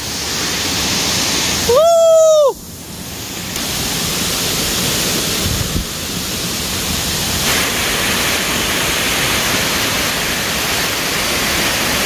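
Waterfall rushing in a steady, full flow. About two seconds in, a single loud high-pitched call lasting under a second sounds over it.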